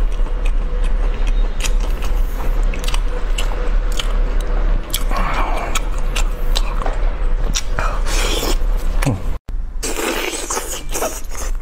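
Close-miked chewing and biting of meat, with many short wet mouth clicks and smacks. The sound cuts out for an instant about nine seconds in, and then the biting goes on, into roast chicken.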